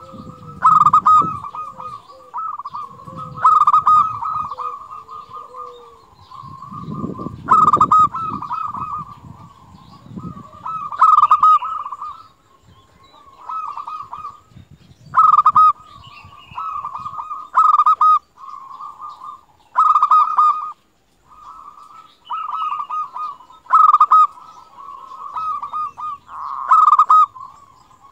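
Local Indonesian zebra dove (perkutut) singing steadily. It repeats its rolling cooing phrase about every three to four seconds, each phrase opening on a loud note and running on into a string of quicker, softer coos.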